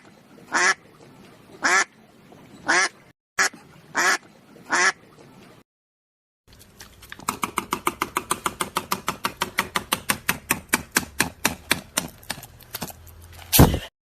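A duck quacking, one loud quack about every second. After a short break, a fast, even run of short calls or pulses, about seven a second, ends in one loud burst.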